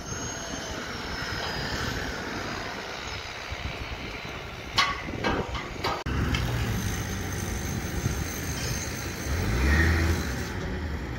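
Outdoor construction-site noise with a few sharp knocks, then a wheel loader's diesel engine running with a steady low hum. The engine swells briefly as the loader works a bucket of soil.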